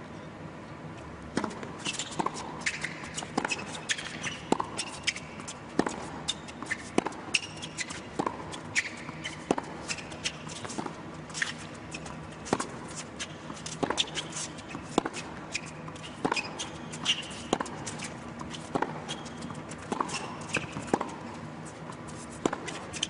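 Tennis rally on an indoor hard court: sharp racquet-on-ball strikes, starting about a second in and then coming about once a second, with shoes squeaking and scuffing on the court surface between shots.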